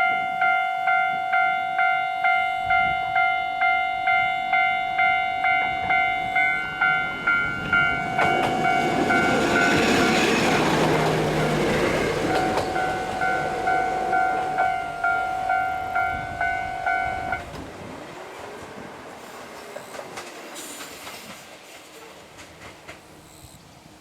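Japanese level-crossing warning bell ringing about twice a second while a Kyoto Tango Railway diesel railcar passes over the crossing, the train's rumble loudest near the middle. The bell stops about two-thirds of the way through and the train's sound fades away.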